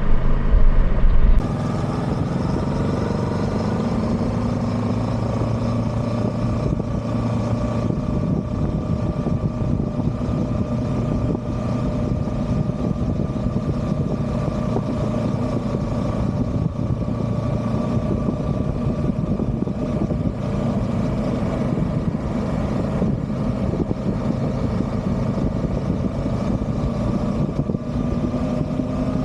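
Kawasaki Versys 650 parallel-twin engine running steadily at cruising speed under an even rush of road and air noise. A louder low rumble in the first second and a half gives way to a steady note, which rises slightly near the end.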